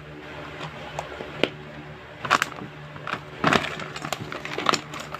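Gift packaging being handled and opened: irregular crackling and rustling with a few sharper cracks, over a steady low hum.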